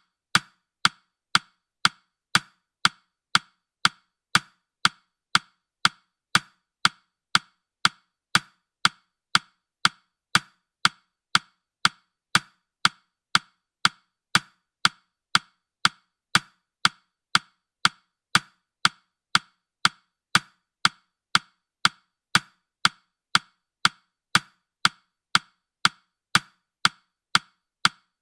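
Clock ticking sound effect: sharp, even ticks about twice a second, marking off the seconds of a countdown timer.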